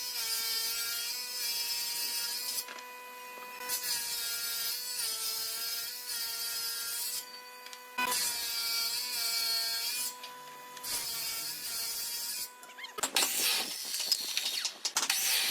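Electric woodworking power tool running with a steady whine that dips briefly again and again as it cuts into wood, stopping for about a second three times. From about 13 seconds in, rough rasping cutting noises take over.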